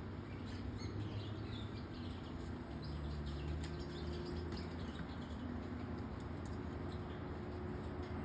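Scattered short, high chirps and a few faint clicks, over a steady low rumble.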